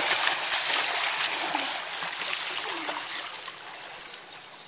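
Splashing of two children swimming freestyle in a pool, kicking and stroking hard, with many sharp splashes at first that die down steadily toward the end as they reach the wall.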